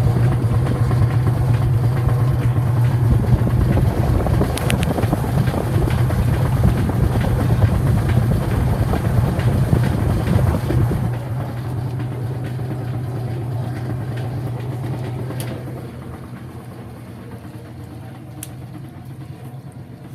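Whirlpool WTW5300SQ0 top-load washing machine running with a steady motor hum and churning noise. The sound drops about eleven seconds in and fades further near the end, as the machine winds down.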